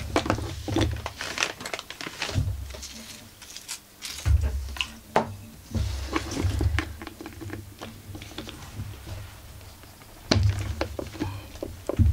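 Metal hand tools and chainsaw parts being handled on a workbench: irregular clinks, clicks and knocks, with dull thumps as things are set down and picked up.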